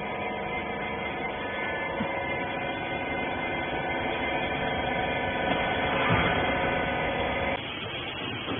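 Hydraulic bagging baler running, its motor and pump giving a steady hum made of several held tones, which cuts off suddenly near the end.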